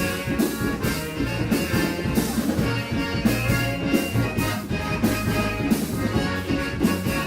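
A band playing an up-tempo song with drum kit, bass and horns, with a steady beat.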